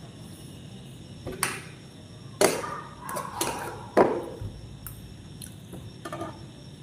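Eating sounds close to the microphone: several short, sharp clicks and smacks from biryani being eaten by hand off a plate, loudest about two and a half and four seconds in.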